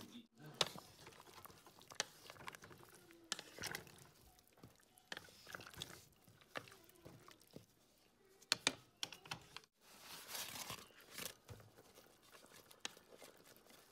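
Vegetable pieces being dropped into a pot of meat stew, with scattered clicks and knocks of a utensil against the pot and soft splashes. The sound cuts out briefly twice.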